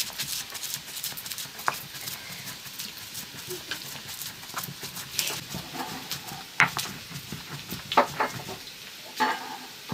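Stone pestle knocking and grinding against a stone mortar in irregular sharp knocks, with a few louder strikes in the second half.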